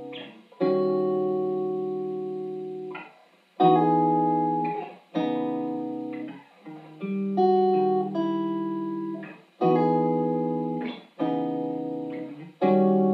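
Solo guitar playing a slow chord progression: about seven chords, each struck once and left to ring and fade before the next.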